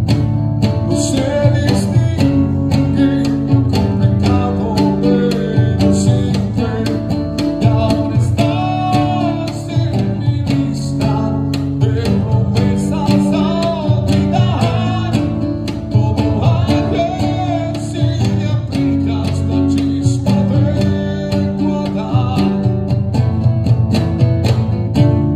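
A man singing over a strummed nylon-string classical guitar, with the voice weaving in and out above the steady chords.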